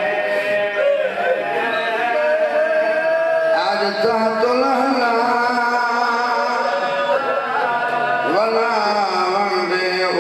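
A man singing mourning verses into a microphone in a long, melodic chant, with held notes that slide up and down in pitch.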